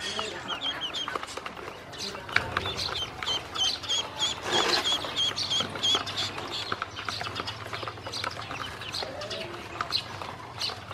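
Ducklings peeping, with a quick run of high, hooked peeps at about three a second through the first half, and fewer afterward. Bills peck and tap against the plastic basin and feed dish as they eat, giving frequent short clicks.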